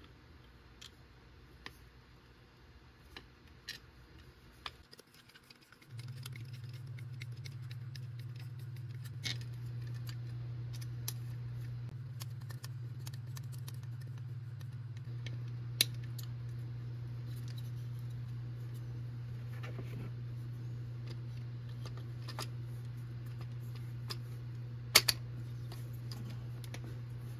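Light clicks and taps of homemade PCP air-gun parts being handled and fitted together, with a sharp click about two thirds of the way through and two close sharp clicks near the end. A steady low hum comes in about six seconds in.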